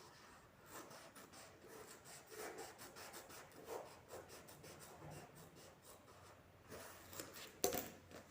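Faint, irregular scratching and rubbing of a sheet of EVA foam being worked by hand as strips are cut from it, with one sharp click near the end.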